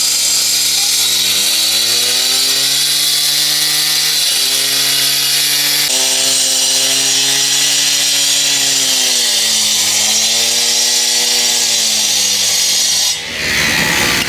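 Husqvarna K770 two-stroke power cutter running at high throttle while its diamond blade cuts concrete, with a loud hiss of grinding. The engine pitch rises, then sags and recovers several times as the blade is loaded, and the saw drops off sharply near the end.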